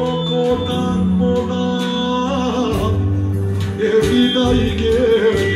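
A man singing live into a microphone through a PA, with a sustained, wavering melody over an electronic keyboard backing that carries a bass line and a steady beat.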